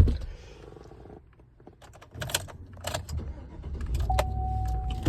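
A loud thump at the start, then keys clicking and jingling in a 2019 Chevrolet Silverado. About four seconds in, a single steady electronic warning tone comes on as the ignition is switched on before starting.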